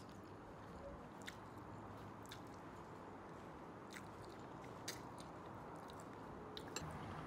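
Faint mouth sounds of eating noodles, with chewing and a few sharp clicks of chopsticks against the bowl.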